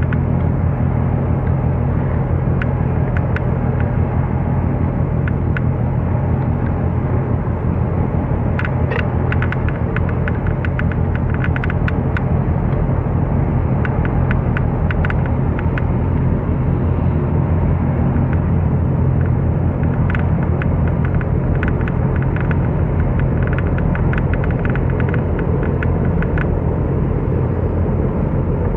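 Diesel engine of a harbour boat running steadily at a constant low drone, with scattered light ticks of water slapping on the hull.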